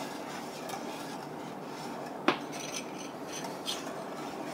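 Wire whisk stirring boiling gravy stock in a stainless steel pot, its wires clinking against the pot with one sharp clink a little over two seconds in and a few lighter ticks after, over the steady bubbling of the stock.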